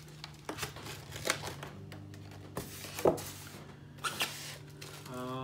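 Styrofoam packing shell being lifted apart and set down, with the clear plastic bag around the statue crinkling: a string of short scrapes, rustles and knocks, the loudest about three seconds in.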